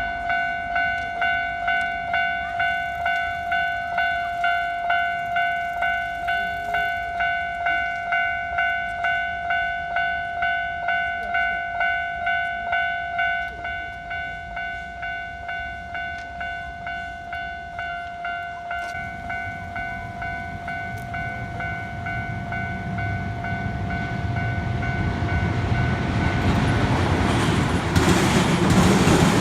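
Japanese railroad crossing warning bell ringing a steady, even rhythm of dings, which drops in level about halfway through. Over the last ten seconds a train's rumble builds and grows loud near the end, drowning out the bell.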